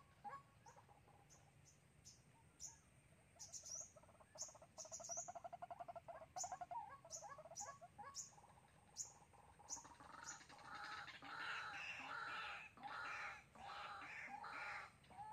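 White-breasted waterhen calling. A fast, stuttering run of notes comes around four to six seconds in, and from about ten seconds on there is a run of harsh, repeated croaking notes, the bird's territorial call that the trapper's decoy uses to draw wild waterhens. Thin, high chirps repeat about every half second through the first half.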